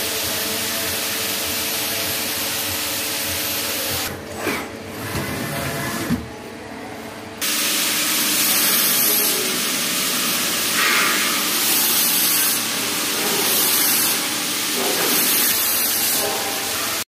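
CNC lathe turning a steel shaft under flood coolant: a steady spraying hiss of coolant over the running machine. About four seconds in it drops, with a few knocks, then comes back louder from about seven seconds, swelling and easing several times.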